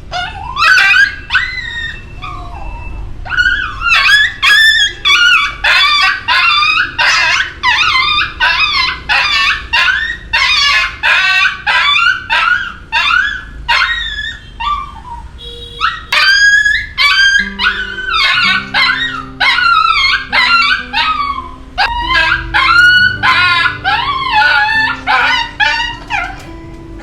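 A dog whining and yelping over and over in short, high-pitched cries, about two a second. Background music of steady low notes comes in about halfway through.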